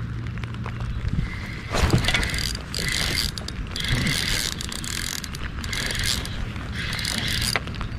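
Spinning reel being cranked to retrieve a lure, its gears whirring in repeated runs of about half a second to a second, with rain pattering steadily.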